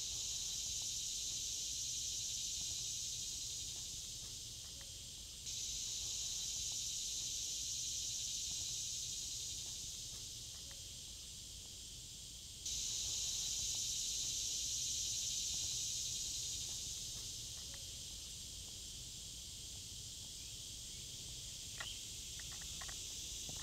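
Outdoor insect chorus: a steady high-pitched drone that jumps abruptly in level twice, with a few short ticks near the end.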